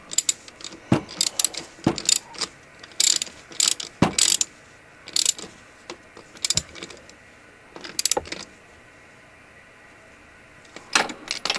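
Socket ratchet clicking in short irregular runs as the oil drain plug of a 1984 Honda TRX200 ATV is tightened, with a quieter pause before a few more clicks near the end.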